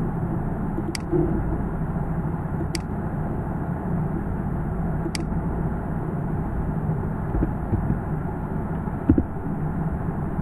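Steady low background noise with three sharp computer mouse clicks, about one, three and five seconds in, and a dull low thump near the end.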